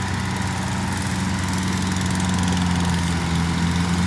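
An engine running steadily at an even, low pitch.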